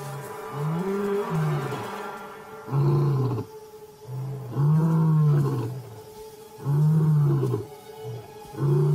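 Male lion roaring, the call of the territory's resident male: a series of deep calls that rise and fall in pitch, about one every two seconds. Background music plays underneath.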